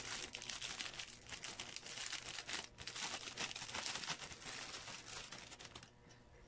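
Clear plastic bag crinkling and rustling as a small tripod camera stand is handled and unwrapped from it. The crackle dies away about six seconds in.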